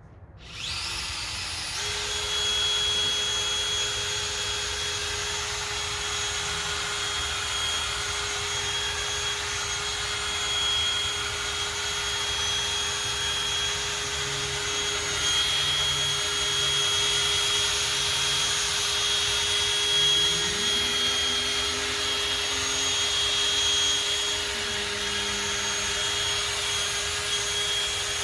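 Electric power tool running steadily with a constant whine, wet-sanding a plastic headlight lens with 3000-grit paper; a lower hum rises in pitch about 20 seconds in.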